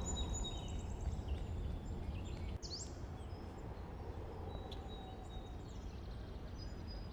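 Quiet open-air country ambience: a steady low rumble with scattered short, high bird chirps and one swooping call about three seconds in.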